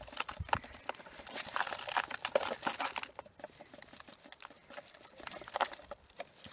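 Fine gravel poured from a plastic bag into a cut plastic bottle: small stones clattering against the plastic, with the bag crinkling. The clatter is densest a couple of seconds in and thins out after.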